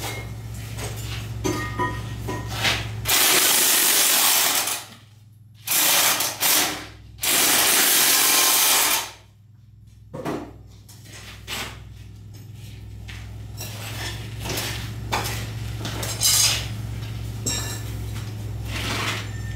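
Hypertherm Powermax 85 plasma cutter torch firing in three loud hissing bursts of one to two seconds each, starting about three seconds in, with light clicks and knocks of the saddle beveler and positioner being handled around them. A steady low hum runs under the rest.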